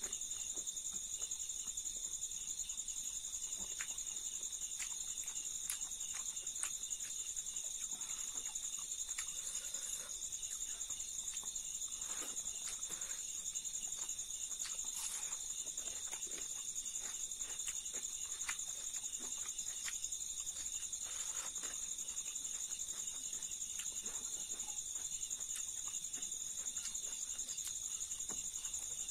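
Crickets trilling in a steady high-pitched chorus, with soft, irregular clicks and crunches of close-up chewing on fried silkworms.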